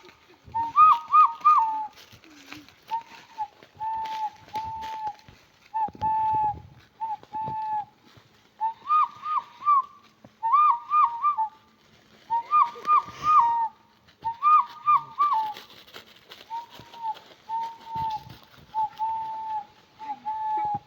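Hand whistle: a woman blowing into her cupped palms, imitating bird calls. Phrases of three quick notes alternate with single longer, lower held notes, with short pauses between phrases.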